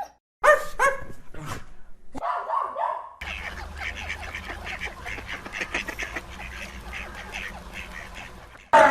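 Animal calls: two short pitched calls, then a longer call, then from about three seconds in a dense chorus of many animals calling over one another, and a single loud call near the end.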